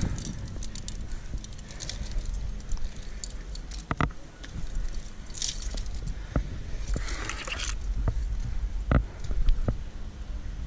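Climbing gear (carabiners and quickdraws on a harness) jingling and clinking as a climber moves up limestone, with scattered sharp knocks and brief scrapes of hands and shoes on rock over a steady low rumble.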